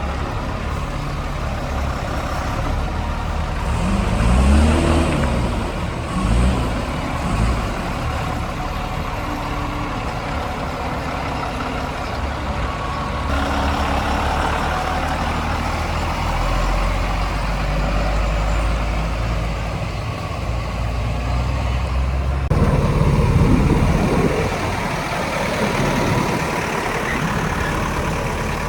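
Heavy diesel vehicle engines running, revved up and down a few times about four to seven seconds in. The engine sound changes abruptly twice further on.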